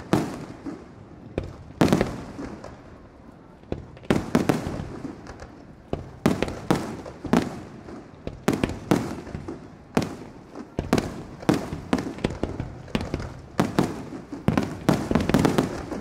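Aerial firework shells bursting one after another, sharp booming reports with rumbling echoes between them, coming thickest near the end.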